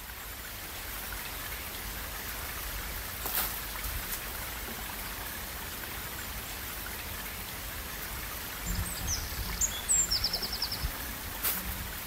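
Steady rush of running water, with small birds chirping and a short rapid trill about two-thirds of the way through.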